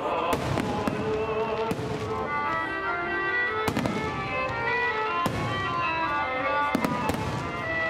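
Fireworks bursting in irregular sharp bangs, about seven of them, two in quick succession near the end, over music playing.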